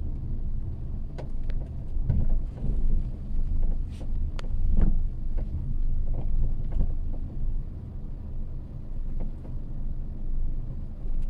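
Inside a moving Geely Coolray, steady road noise with irregular sharp knocks, creaks and rattles from the rear of the cabin. The right half of the folding rear seatback was not latched and is rattling in its lock.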